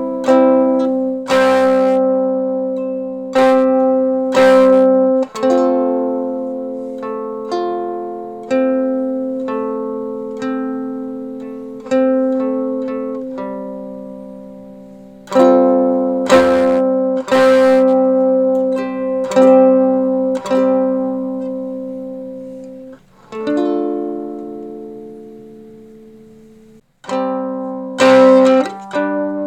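Electric ukulele playing struck chords and notes through an Acorn Amps Biz Card low-power amplifier and a roughly 60-year-old speaker in a small homemade cabinet. Each chord is left to ring and fade, with a short break in the playing near the end.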